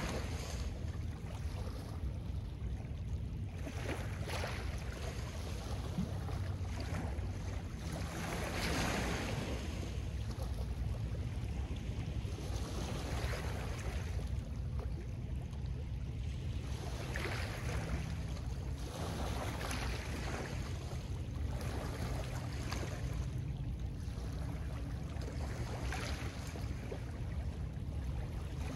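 Small lake waves washing onto a pebble shore, a soft wash every three to four seconds, over a steady low rumble of wind on the microphone.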